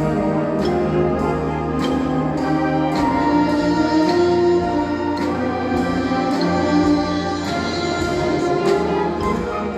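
High school symphonic band playing live: sustained brass and woodwind chords over evenly spaced percussion strokes.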